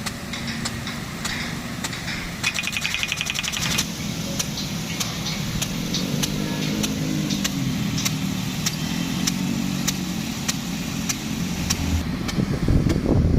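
An engine running with its pitch wavering, under a steady hiss, with sharp ticks about twice a second and a quick rattle of ticks a few seconds in.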